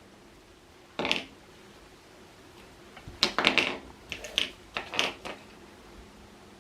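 Handling clatter: a single sharp knock about a second in, then a quick run of clicks and knocks, like parts being fitted or snapped together.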